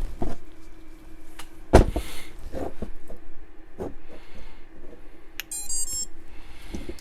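Knocks and handling of a freshly rebuilt FPV racing quad, then a quick run of high-pitched electronic beeps near the end from its powered-up electronics, with a faint steady hum underneath.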